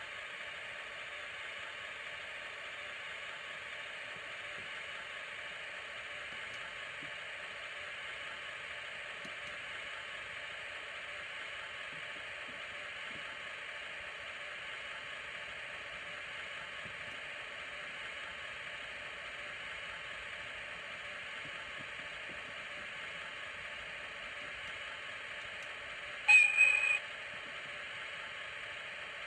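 A DCC sound decoder (Digitrax SDH186MT, DE10 sound program) plays a JNR DE10 diesel locomotive's engine idling steadily through a 28 mm speaker in the HO model. The sound is thin, with almost no bass. Near the end a short, loud, high-pitched horn blast sounds.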